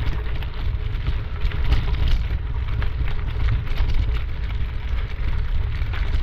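Wind buffeting a body-worn camera's microphone while running downhill on a trail, with the crunch of footfalls coming through the rumble.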